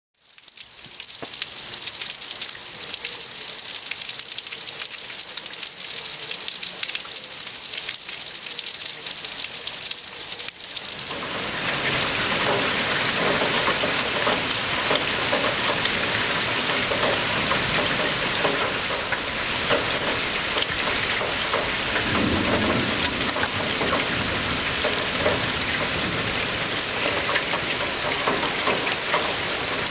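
Thunderstorm rain falling steadily, a hiss that fades in at the start and turns much heavier and fuller about eleven seconds in.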